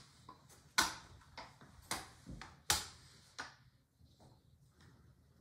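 Rolling pin clicking against a floured stone countertop while dough is rolled out thin: a sharp click with each stroke, about six in the first three and a half seconds, then the clicks stop.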